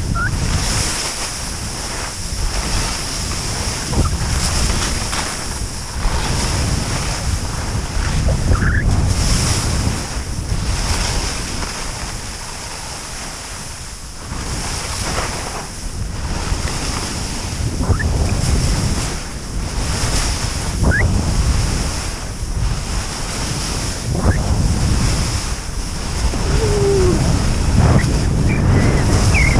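Skis hissing and scraping over spring snow under heavy wind noise on a GoPro Hero5 Session's microphone, the rush swelling and fading every couple of seconds. A few short thin squeaks come through over the second half.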